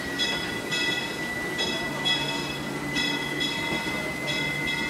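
Open passenger car of the Disneyland Railroad rolling along the track: a steady rumble from the running gear, with a thin high squeal from the wheels on the rails and a cluster of higher squealing tones that cuts in and out about every half second.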